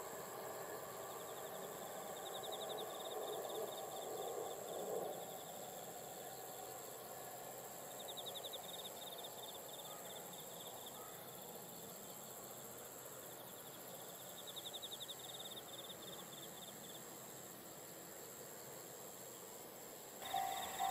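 Insects chirping in a rice field: a steady high-pitched trill throughout, with repeated bursts of a fast pulsing chirp every few seconds. Underneath is a faint low rumble that swells and fades in the first five seconds.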